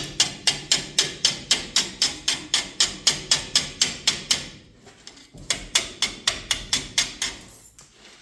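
Hammer rapidly striking the steel leaves of a truck's leaf spring, about four blows a second with a short break partway through, knocking rust scale off from between the leaves.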